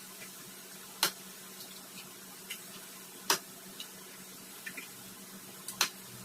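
Three sharp clicks, roughly two and a half seconds apart, with a few fainter ticks in between, over a faint steady hiss.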